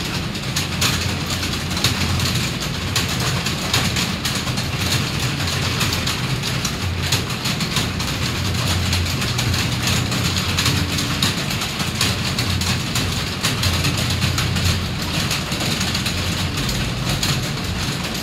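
Many computer keyboards being typed on at once, a dense, continuous clatter of key clicks over a low steady hum.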